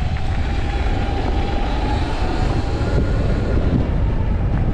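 Sur Ron electric dirt bike being ridden: a faint, steady electric-motor whine over heavy wind rumble on the microphone.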